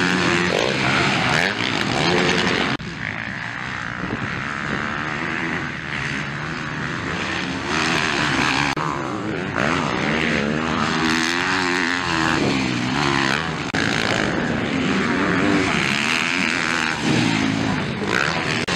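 Motocross bike engines revving up and down hard as the bikes race and jump around a dirt track, the pitch rising and falling with the throttle. The sound changes abruptly about three seconds in.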